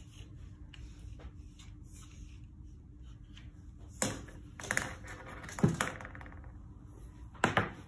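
A few knocks and scraping rustles as a tape measure is pulled out and laid along a wooden table. The loudest knock comes a little past halfway and another near the end, over a faint steady hum.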